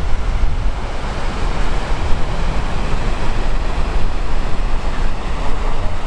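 Ocean surf breaking and washing up the beach, a steady rushing noise with wind rumbling on the microphone.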